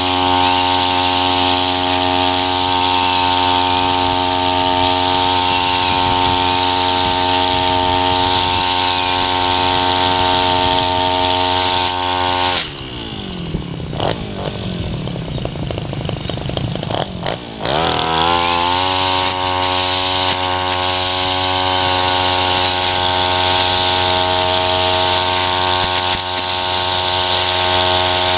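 Tabata 32 cc two-stroke backpack brush cutter with an eight-line trimmer head, running at full throttle as its line cuts through tall grass. About 13 seconds in the throttle is let off and the engine falls to a lower, uneven speed for about five seconds. It then revs back up to full speed and cuts on.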